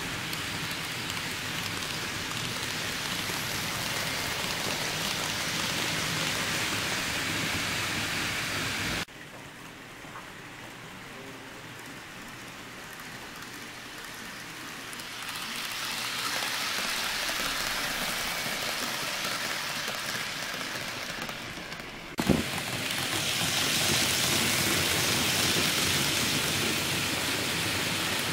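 N-gauge model of a JR West 221 series train running on the layout's track: a steady rushing noise of wheels and motor that swells and fades as the train passes. The sound cuts abruptly about nine seconds in and again about twenty-two seconds in, the second cut with a sharp click.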